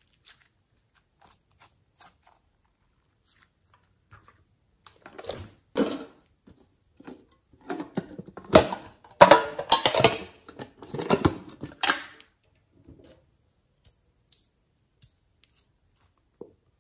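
Handling noises: scattered light clicks of glossy slime being stretched, then a run of loud clattering and scraping bursts as a crab-shaped tin container is handled, followed by a few light clicks near the end.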